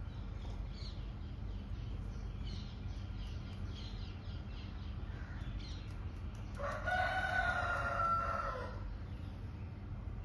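A rooster crows once, a single drawn-out call of about two seconds past the middle, over faint high chirps from small birds and a steady low rumble.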